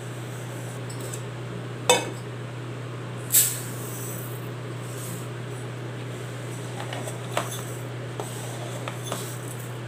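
Steel tumbler clinking against bowls while scooping dry foxtail millet, with a brief rush of the grains pouring into a steel bowl about three seconds in. A few fainter clinks follow near the end.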